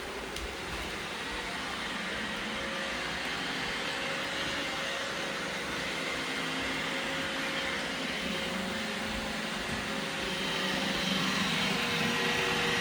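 Robot vacuum cleaner running: a steady whirring hum and hiss with a faint steady tone, growing a little louder near the end.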